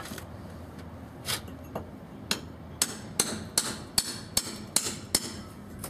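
Hammer driving a cold chisel into a brick wall: sharp ringing metal-on-metal blows. A few spaced strikes, then a quicker run of about two to three blows a second from about three seconds in.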